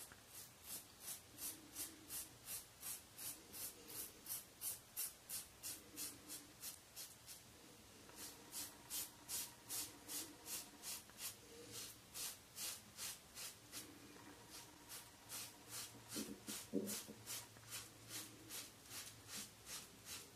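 Rockwell 6C safety razor scraping through three days of scalp stubble under lather in short, quick strokes, about three a second, with two brief pauses between runs. One soft knock comes near the end.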